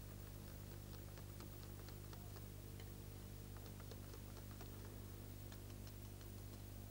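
Faint, irregular ticks of a wire whisk's wires against a glass bowl as it stirs a soft cream, over a steady low hum.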